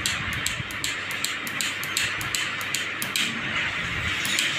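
Irregular sharp clicks from a short killer's discharge pulses, several a second over a steady hiss, as its probes fire into a shorted CKV1/CKV2 gate-clock line on a TV panel's board strip to burn the short open. The short is heavy and has not yet opened.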